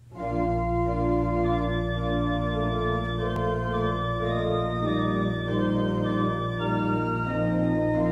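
Organ playing slow, sustained chords over a held low bass note, coming in from silence at the start. The chords change about every second.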